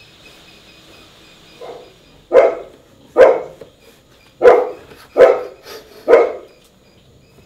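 A dog barking: a faint yelp and then five loud, sharp barks, roughly a second apart.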